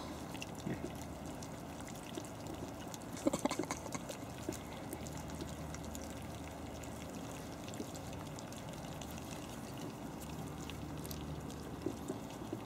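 Havanese puppies eating wet food from steel bowls: steady wet smacking and lapping from many mouths, with a few sharper clicks about three and a half seconds in.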